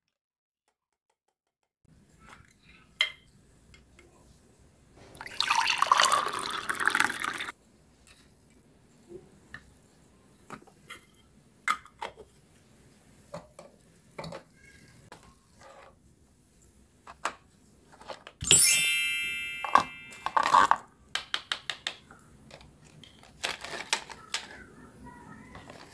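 Plastic toy kitchen pieces being handled, with scattered clicks and knocks. About five seconds in, liquid is poured and sloshed for a couple of seconds. About two-thirds of the way through comes a sharp clatter with a brief ringing tone that fades, followed by a few short rustling bursts.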